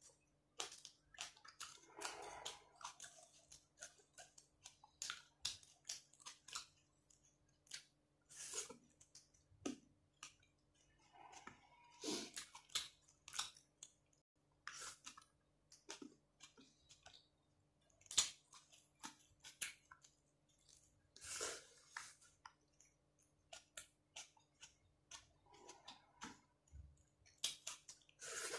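Close-miked chewing and wet lip-smacking of a person eating rice and fried fish by hand, in many short, irregular clicks and smacks.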